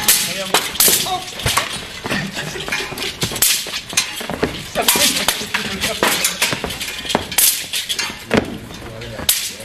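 Martial-arts staffs striking against each other again and again in a two-person sparring routine: sharp, irregular clacks, several a second at times.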